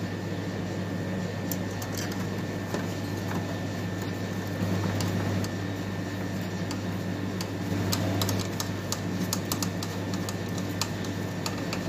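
Screwdriver fastening screws into an ice machine's water pump bracket: irregular small metallic clicks and scrapes, over a steady low hum.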